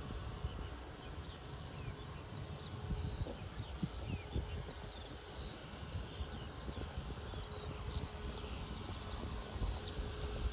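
Many small birds chirping and singing over a grassy field, short repeated calls throughout, over a low, uneven rumble and a faint steady hum.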